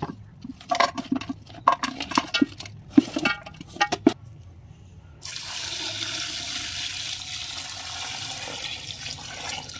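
A run of sharp knocks and clinks, some ringing briefly, then about five seconds in water starts pouring steadily into a vessel, water for washing the cut goat head meat.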